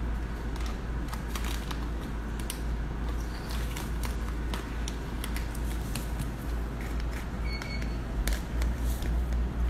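Steady low hum under irregular small clicks and rustles, with a short high beep about three-quarters of the way through.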